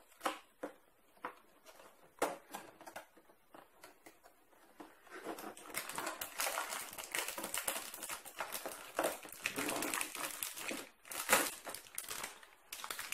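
A few light clicks and taps as the cardboard advent-calendar door is worked open, then a thin plastic parts bag crinkling steadily as it is pulled out and handled, from about five seconds in.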